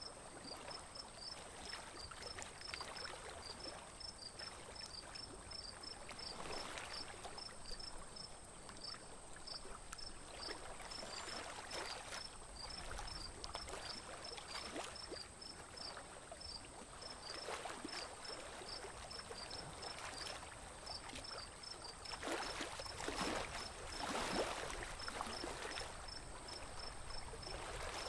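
Water swishing and splashing along the hull of a small wooden boat moving across a lake, with a louder splash every few seconds and a busier run of splashes near the end. A quick, even high chirping runs underneath.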